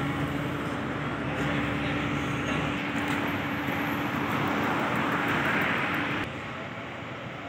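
Car driving along a city street: steady road and engine noise with a low hum, dropping suddenly to a quieter level about six seconds in.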